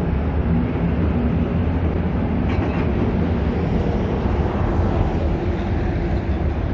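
Steady roar of road traffic, an even rumbling noise with no distinct events.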